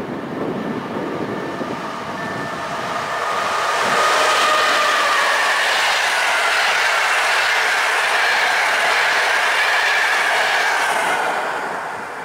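EP09 electric locomotive and its train of passenger coaches passing close by. The rolling noise of wheels on rails swells loud about four seconds in, with a high whining tone that slides slowly in pitch, then fades near the end as the last coach goes by.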